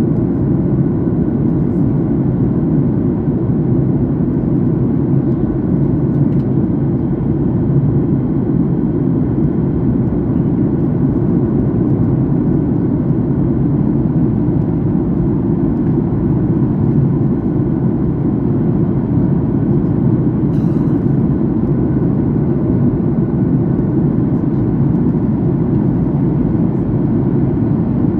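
Steady cabin noise of a jet airliner in flight: an even, low rumble of engines and airflow.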